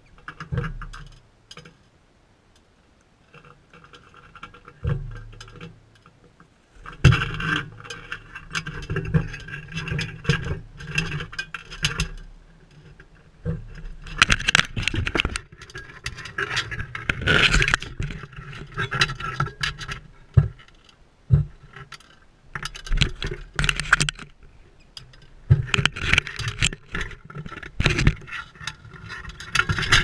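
Sulphur-crested cockatoos' beaks and claws scraping, scratching and knocking on a small camera right at the microphone, in irregular bursts with a quieter stretch a few seconds in.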